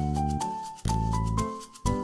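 Background music with a steady beat: a melody stepping up note by note and then back down, over a heavy bass.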